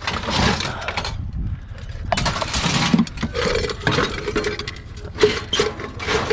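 Scrap metal pieces clinking and knocking together as they are handled and stacked onto a loaded trailer, in irregular bursts.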